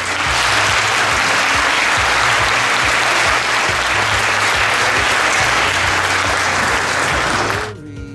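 A lecture-hall audience applauding steadily, stopping abruptly near the end, with background music underneath.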